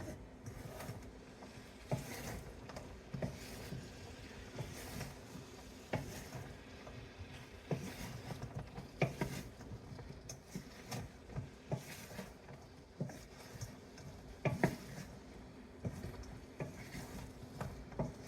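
A cooking utensil stirring and tossing chicken pieces in thick sauce in a pan, with irregular knocks and scrapes against the pan over a light sizzle, as the sesame chicken is coated in its sauce.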